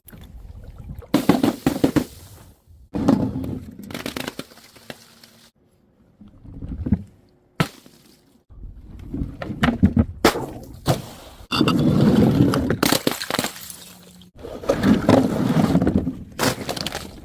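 Objects being smashed and crushed, mostly glass bottles breaking: a string of about a dozen sudden crashes, each with a short crunching tail, with a few longer crunching stretches.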